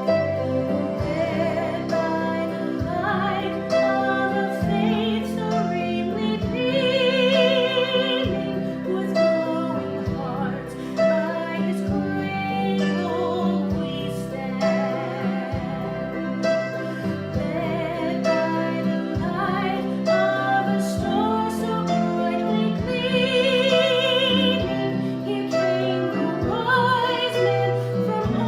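A woman singing a slow song in a classical style, with wide vibrato on held notes, over instrumental accompaniment.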